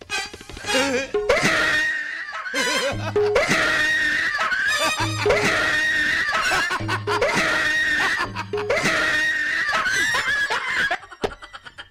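Loud, drawn-out theatrical laughter from male actors over repeating music with a low beat about every two seconds; it breaks off about a second before the end.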